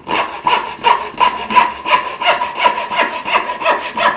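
Factory-sharp Veritas backsaw cutting into a wooden board in quick, even push-and-pull strokes, about three to four a second. The new teeth cut aggressively and tear out some wood.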